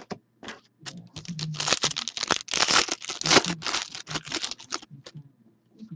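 Foil trading-card pack wrapper being torn open and crinkled by hand: a dense crackle that starts about a second in, is loudest in the middle and stops just before the five-second mark.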